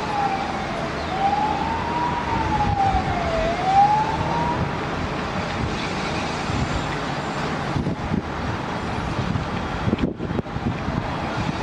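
Emergency vehicle siren wailing in slow rises and falls, fading out about four seconds in, over a steady rushing background noise that carries on after it.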